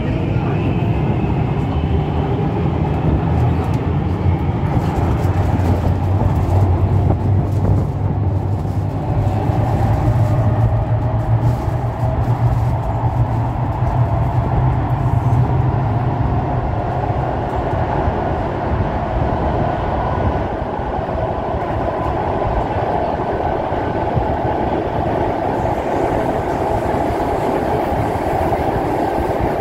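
Kawasaki Heavy Industries C151 metro train running between stations, heard from inside the car: a steady rolling rumble of the train on the track with the whine of its permanent-magnet synchronous traction motors. The low rumble fades a little past halfway, while the higher motor whine grows from about a third of the way in.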